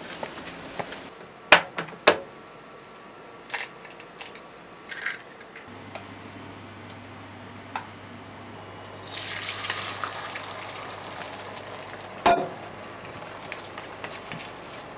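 Cooking sounds: a few sharp knocks and clinks, then from about nine seconds in a sizzle as beaten egg cooks in a hot pan and is stirred with chopsticks, with one sharp knock a few seconds later. A low steady hum comes in about six seconds in.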